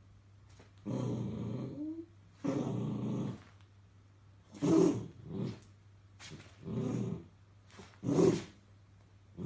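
Miniature dachshund growling at its own reflection in a mirror: two drawn-out growls, then several shorter, louder growls.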